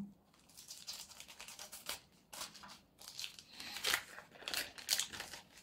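A postal parcel's packaging being opened by hand: irregular crinkling and crisp rustling, with a few sharper, louder rips or snips.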